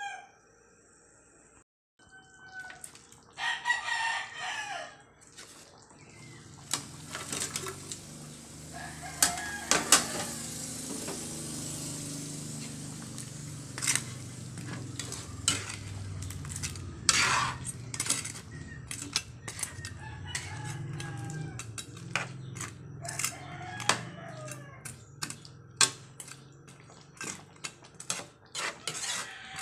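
A rooster crowing several times, over the clink and scrape of a metal spatula against an aluminium wok as fried fish is stirred into a bubbling soy-and-vinegar sauce. The sharp clicks of the spatula on the pan are the loudest sounds.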